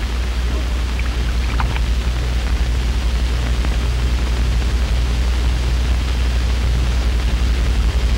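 Steady hiss over a constant low hum, with a few faint short tones about a second and a half in.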